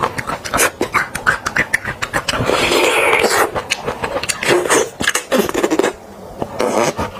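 Close-miked mouth sounds of sucking and slurping marrow out of a roasted beef marrow bone: quick lip smacks and clicks at first, then a long, loud slurp about two and a half seconds in, followed by shorter sucks.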